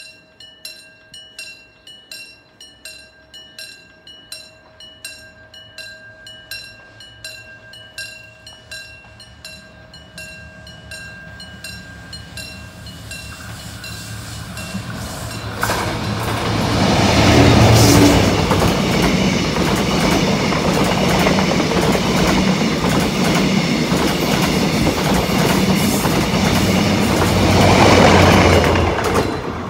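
Level-crossing warning bell ringing at about two strokes a second, then a locomotive-hauled passenger train approaching and passing close by. The rumble and clatter of its wheels on the rails builds, drowns out the bell, is loudest as the locomotive and later the last cars go by, and eases off near the end.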